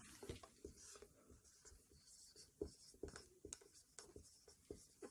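Faint scratching strokes of a marker writing on a whiteboard, short and separate, with more of them in the second half.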